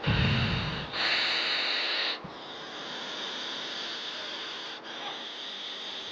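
A man blowing two forceful breaths through his nose: the first about a second long with a low rumble, the second a sharper hiss of about a second. He is testing the airflow through each nostril. A steady faint hiss follows.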